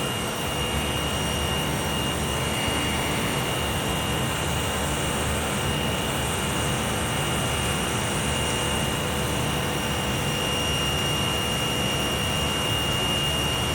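Running chiller and plant-room machinery giving a steady, unbroken mechanical drone with a constant high whine over it.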